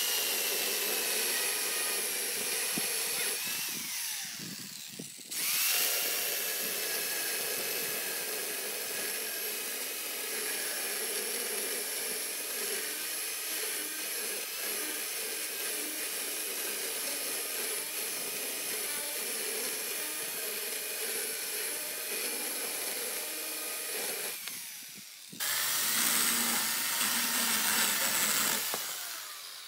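A corded electric chainsaw runs with a steady high whine as its chain cuts through a log. It winds down twice and starts again: briefly about four seconds in, and again for about a second near the end.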